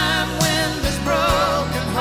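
A song playing: a singer holding notes with vibrato over a steady bass and backing instruments.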